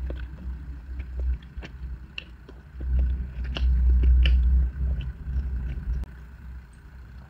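A person chewing a mouthful of salmon and cream cheese sushi, with small wet mouth clicks over a low rumble that is loudest around the middle.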